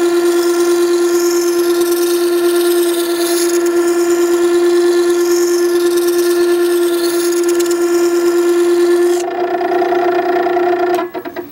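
Makita 9820 electric water-stone sharpener running with a steady whine while a plane iron held in a jig is rough-ground against its coarse 120-grit wheel, a hissing scrape over the motor. About nine seconds in the grinding stops as the iron is lifted off, the whine carries on, then it stops near the end and a few light clicks follow.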